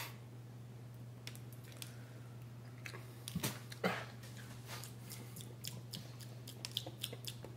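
A person chewing a soft chocolate whoopie pie with the mouth close to the microphone: scattered small wet clicks and smacks, with two louder ones about three and a half and four seconds in.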